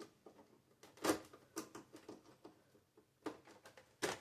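A few scattered clicks and light taps of a screwdriver working at a stubborn, awkwardly angled screw inside a printer's plastic housing.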